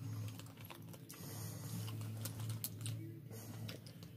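Faint scattered clicks and small rustles from candy canes and their plastic wrappers being handled, over a low steady hum.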